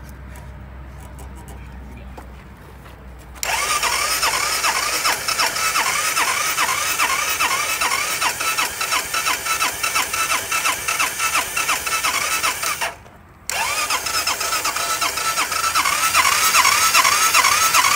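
Electric starter on a Honda 250 ATV cranking the engine in two long bursts, with a brief stop about thirteen seconds in. A whine rises and falls about three times a second with the strokes, and the engine does not catch: the engine has been run with dish soap in place of oil.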